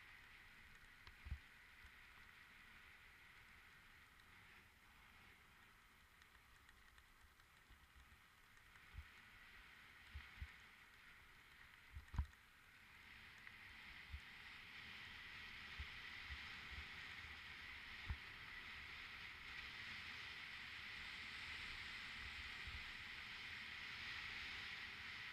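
Steady rolling hiss of a mountain bike descending a trail, picked up by a helmet-mounted camera, with a scatter of dull knocks as it jolts over bumps; the loudest knock comes about twelve seconds in. The hiss grows louder in the second half.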